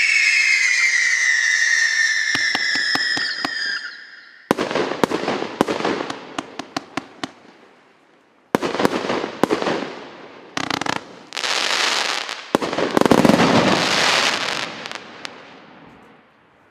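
A 160-shot consumer fireworks cake firing. First several whistling tones slide slowly downward together. Then, from about four seconds in, come four volleys of sharp bangs and crackling, and the sound dies away near the end.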